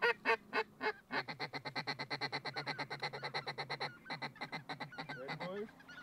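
Hunters' hand-blown waterfowl calls working a circling flock. A few separate honking notes come first, then a long fast run of even notes, about ten a second, which breaks off briefly and stops near the end.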